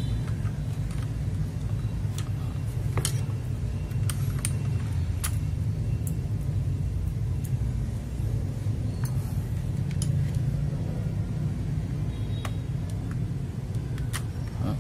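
Steady low rumble in the background, with scattered small sharp clicks and ticks from a mechanical keyboard switch and its parts being handled and fitted.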